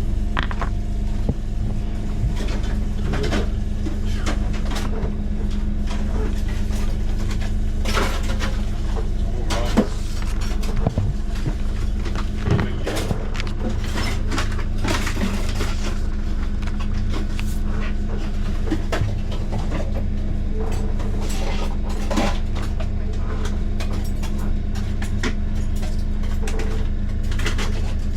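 A steady low mechanical hum with a constant drone, under frequent light knocks, clicks and clatter like cupboard doors and dishes being handled.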